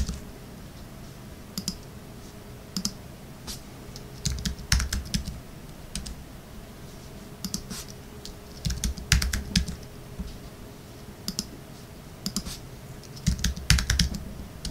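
Computer keyboard being typed on: quick key clicks in three short bursts with pauses between, as a word is typed into a text field.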